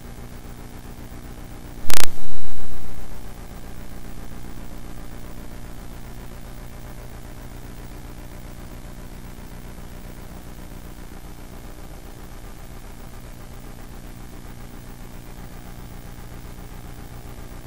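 Steady electrical hum on the chamber's open microphone and sound system. About two seconds in there is one loud thump on a microphone, trailing off over about a second.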